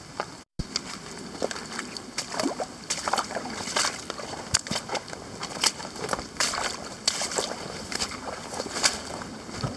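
Footsteps of a person moving quickly over wet forest floor of moss, mud, leaves and rocks: irregular steps and scuffs with plants brushing past. The sound cuts out for a moment about half a second in.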